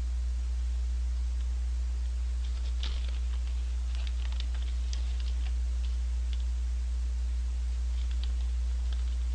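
A steady low electrical hum throughout, with scattered light clicks and crinkles from a paper fries bag being handled and fries eaten from it.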